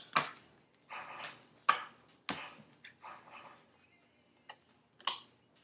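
Tarot cards being gathered up and handled: an irregular string of short swishes and sharp taps.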